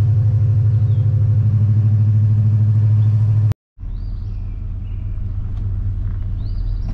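Steady low engine and road rumble inside a Chevrolet Suburban rolling slowly. It breaks off for a moment about three and a half seconds in, then carries on deeper and steadier.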